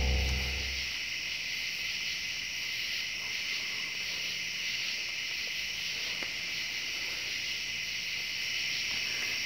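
Steady, unbroken chirring of crickets, a night insect chorus; a distorted electric guitar fades out in the first second.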